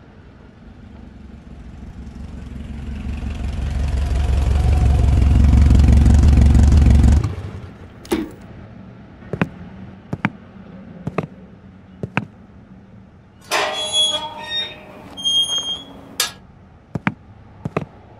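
A low, pulsing rumble swells steadily louder for about six seconds, then cuts off suddenly. After it come scattered sharp clicks and two short bursts of high squeaky tones.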